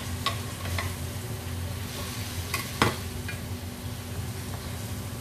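Wooden spatula stirring and scraping tofu and vegetables in a metal frying pan, the food sizzling steadily in its sauce. A few sharp knocks of the spatula against the pan, the loudest about three seconds in.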